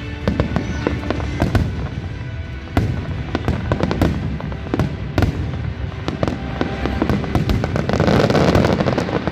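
Aerial fireworks bursting overhead in a rapid, irregular series of sharp bangs. Near the end it builds into a dense, continuous crackle as a volley of gold bursts goes off together.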